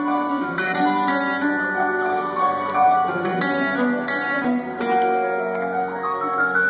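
Live rock band playing an instrumental passage, with plucked guitar notes over sustained chords.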